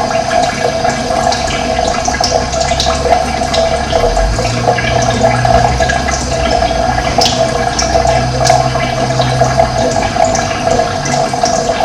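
Running water flowing steadily, with a low hum joining for several seconds in the middle.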